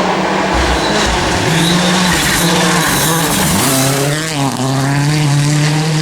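Rally car engine driven hard on a special stage, its revs held high with shifts in pitch about a second and a half in and again near four seconds, where the revs drop and climb again, over tyre noise.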